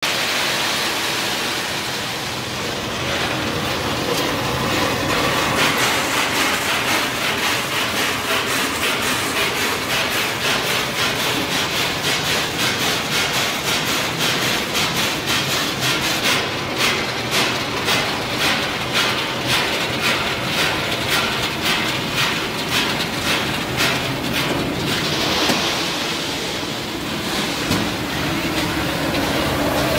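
Continuous peanut-roasting machine line running: raw peanuts pour with a hiss into its stainless steel hopper, then a steady rhythmic clatter of about two to three knocks a second as the machine carries them.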